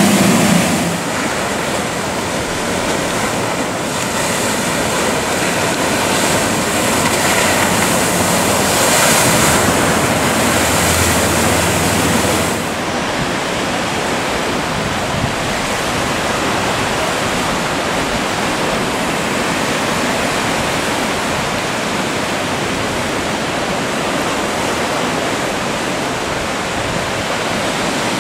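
Steady rush of ocean surf and wind on the microphone. The higher hiss drops away about thirteen seconds in.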